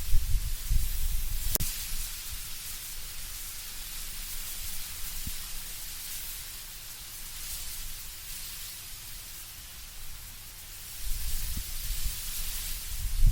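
Wind blowing through autumn trees with a steady rustle of leaves. Deeper gusts swell in the first two seconds and again near the end, and a single sharp click comes about a second and a half in.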